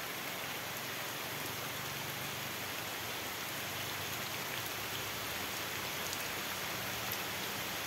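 Light rain falling steadily on a babaçu palm-straw thatch roof, heard from underneath as an even, unbroken patter.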